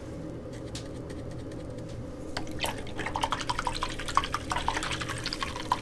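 Paintbrush working wet acrylic paint on a palette: a rapid, irregular run of small wet clicks and drip-like pops that starts about two seconds in, over a faint steady hum.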